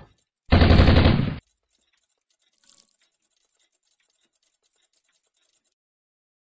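A burst of rapid machine-gun fire lasting about a second, followed by faint scattered ticks.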